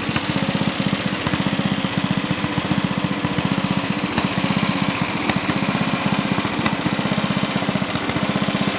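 Lawnmower engine running steadily, with a fast, even chug that holds at one speed.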